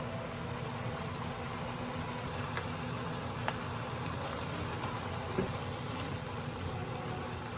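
Food sizzling in a frying pan: a steady crackling hiss, with a couple of light clicks of utensils on the pan.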